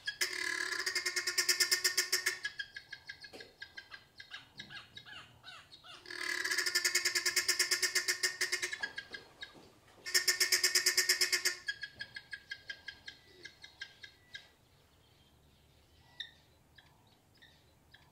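Helmeted guineafowl alarm calling: loud runs of rapid, harsh, evenly repeated cackling notes, three bursts of a couple of seconds each, trailing off into scattered weaker calls and falling quiet in the last few seconds.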